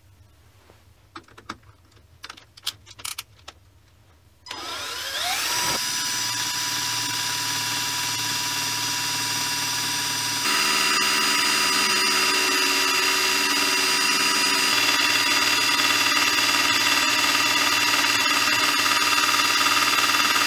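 A few metallic clicks as parts are fitted to a mini lathe's spindle end, then a cordless drill coupled to the spindle spins up with a rising whine and runs steadily, driving the lathe's spindle, gears and chuck in place of its removed motor. The running whine steps up louder about halfway through.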